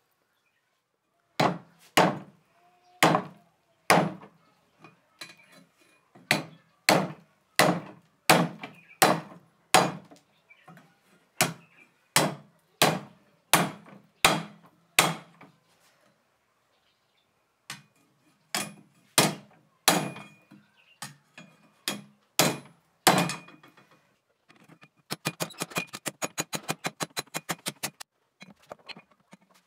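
A hammer forging a steel knife blade on a railroad-track anvil. The blows come about one to two a second, each with a short metallic ring, with a pause of about two seconds midway. Near the end they change to a fast run of lighter taps.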